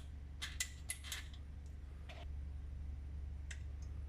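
A few light clicks and taps of small 3D-printed plastic parts and pins being handled during assembly: a quick cluster about half a second to a second in, and one more about two seconds in.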